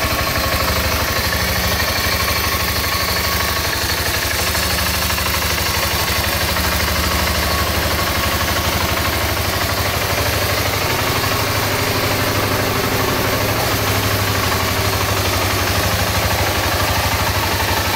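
BMW G650GS's single-cylinder four-stroke engine idling steadily.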